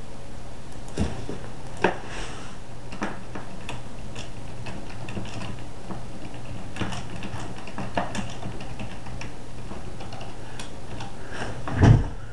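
Scattered light clicks and taps, spaced irregularly about a second or more apart, over a steady low hum, with a dull thump near the end.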